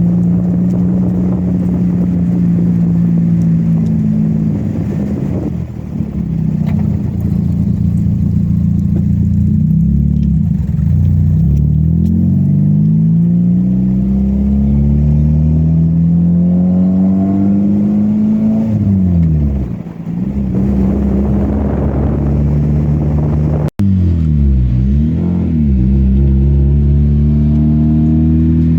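Mazda Miata's freshly rebuilt inline-four engine running under way, its note repeatedly climbing in pitch as it accelerates and then dropping back. A sharp dip in pitch comes about two-thirds of the way through, followed by a few quick up-and-down swings.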